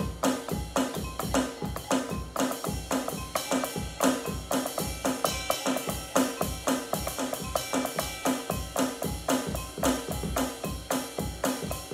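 Drum kit played in a fast, steady groove, bass drum and snare driving an even beat of about four strokes a second.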